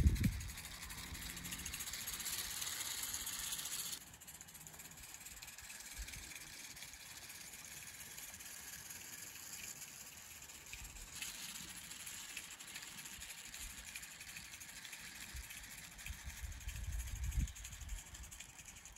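Small 32mm-gauge live-steam garden-railway locomotive running past with its wagons: steam hiss and the rattle of small wheels on track. It drops sharply to a faint hiss about four seconds in, with some low rumble near the end.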